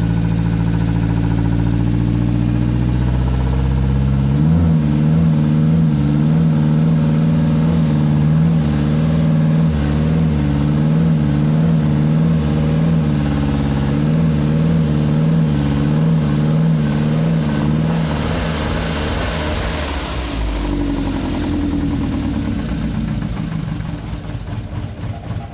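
2013 Nissan GX engine starting and running on its first start after a no-injector-pulse fault traced to a clogged harness connector and a dirty cam sensor. A lower steady drone climbs in pitch about four seconds in. It runs high with an uneven pulsing, then drops and settles lower from about twenty seconds.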